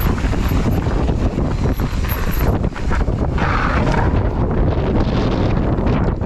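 Strong wind buffeting the microphone: a loud, steady rumble that rises and falls with gusts.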